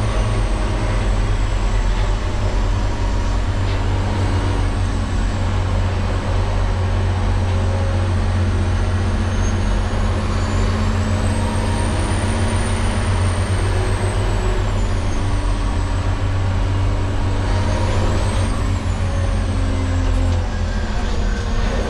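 LGMG CMT96 off-highway dump truck on the move, its diesel engine running with a steady deep drone. A faint high whine rises and falls in pitch over it.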